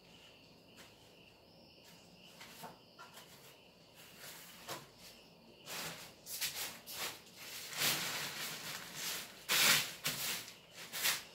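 Hands sweeping and rubbing over paraglider nylon fabric: a run of dry swishing rustles that starts about halfway through and grows louder. Before it there is a faint steady high tone with a few soft clicks.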